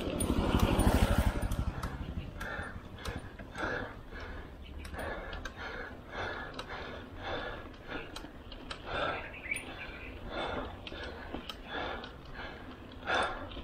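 A small motorcycle passes close by in the first two seconds, its engine a fast low buzz. After it, steady rhythmic heavy breathing of a cyclist working up a steep climb, about one breath every 0.7 s.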